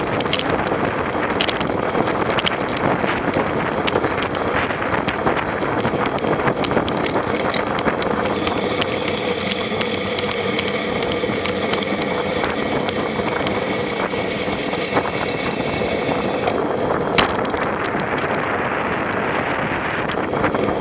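A vehicle running under heavy wind noise on the microphone, with many small knocks; a steady engine tone comes in about nine seconds in and drops away about eight seconds later.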